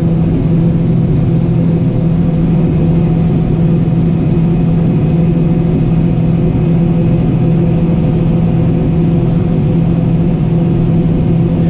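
John Deere 9570 combine running steadily while harvesting corn, a loud even drone of engine and threshing machinery heard from inside the cab.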